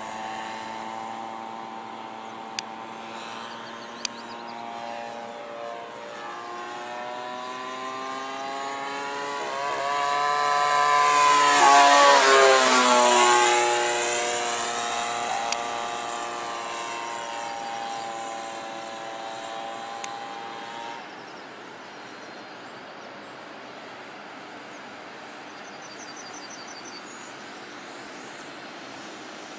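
Radio-controlled model airplane engine flying past. Its drone grows louder and higher toward a close pass about twelve seconds in, then drops in pitch and fades as the plane moves away. The sound cuts off abruptly about nine seconds later, leaving only a faint steady hiss.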